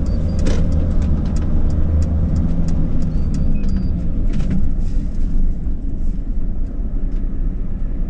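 Mercedes Sprinter camper van driving, heard from inside the cab: steady engine and road rumble, with light clicks and rattles throughout.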